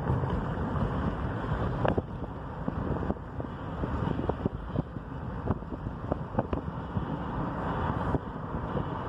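Steady road and wind noise from a moving car, with scattered light clicks.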